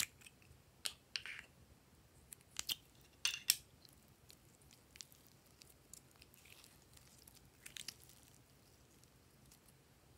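Crinkling and sharp clicks of plastic as the clear wrap is peeled off a small plastic tub of clay and the tub is opened, clustered in the first few seconds. Later, softer crackly squishing as the soft clay is pressed and kneaded by hand.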